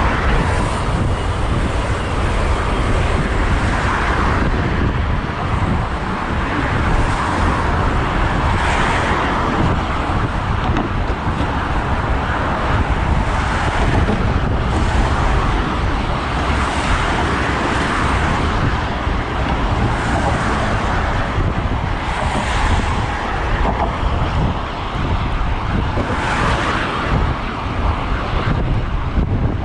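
Wind rushing over the microphone of a riding road cyclist, with road traffic and cars passing every few seconds.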